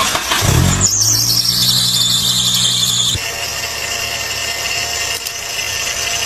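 A vehicle running with a loud high-pitched squeal from under the chassis that slides down in pitch over about two seconds, then settles into a steadier high whine over the low engine sound.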